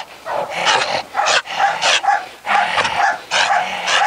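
Brindle pit bull–type dog barking repeatedly, about two barks a second. It is excited barking in prey drive at a bite tug, not threat barking, by the trainer's account.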